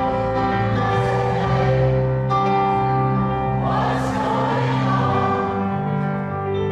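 Audience singing along in chorus with a live band, holding long sung notes over the accompaniment.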